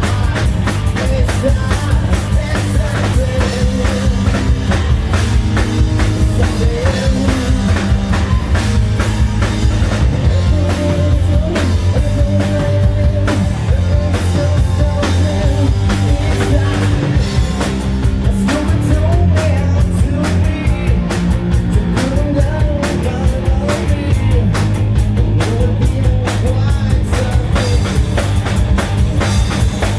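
Hard rock band playing live: a drum kit driving a steady, dense beat under bass, guitars and a wavering melody line, loud and continuous.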